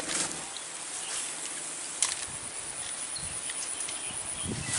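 Insects buzzing, with a thin high steady tone that starts about two seconds in and stops near the end, over a few light clicks.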